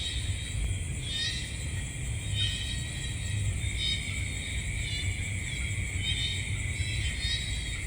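Night nature ambience: a steady high insect-like drone with short chirping calls repeating about once a second, over a low rumble.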